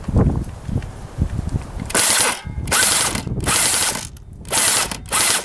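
Airsoft electric guns firing about four short full-auto bursts of roughly half a second each, starting about two seconds in. Each burst is a rapid mechanical rattle from the gun's gearbox. Low thumps of movement come before the bursts.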